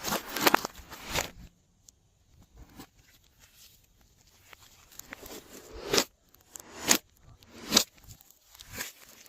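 Glossy slime being worked and mixed, giving wet, sticky crackles and pops. A dense run of squishing in the first second and a half, then a quieter stretch, then single louder pops about six, seven and eight seconds in.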